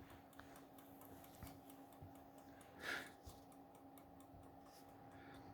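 Wind-up bumblebee kitchen timer ticking faintly and steadily while it is still counting down, before the bell rings. A faint steady hum lies under it, and a brief soft sound comes about three seconds in.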